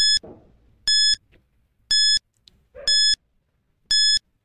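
Countdown timer sound effect: five short, high-pitched electronic beeps, one each second, counting down from five to one.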